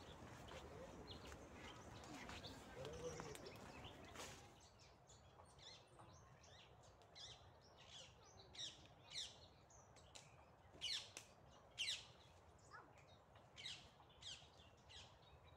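A small songbird calling in short, sharp chirps that sweep downward, repeated irregularly about one or two times a second. For the first four seconds, before the chirps begin, there is only a faint rustling hiss.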